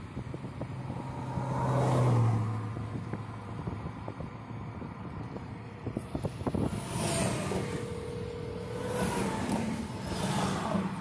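Highway traffic going past a stopped car, heard from inside the cabin: vehicles rush by with swelling and fading tyre and wind noise about two seconds in, around seven seconds in and near the end, the first with a low engine drone.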